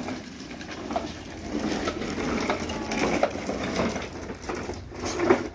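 Hard plastic wheels of a child's foot-pushed ride-on toy car rolling over concrete paving stones: a continuous gritty rattle with many small clicks.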